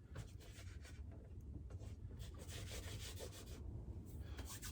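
Soft, irregular rubbing and scraping of hands working fresh clay, over a low steady hum.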